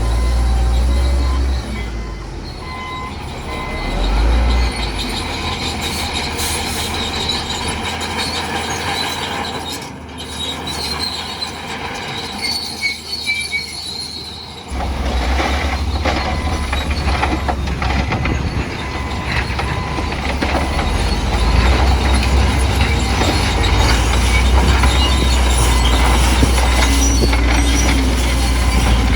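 Crawler bulldozer working, its engine and running gear making a heavy mechanical rumble. The rumble eases about ten seconds in, then comes back suddenly and loudly about fifteen seconds in and stays loud.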